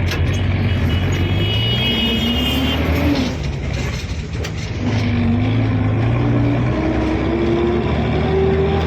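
A motor vehicle running with a steady low hum; about five seconds in its pitch starts rising steadily as it speeds up.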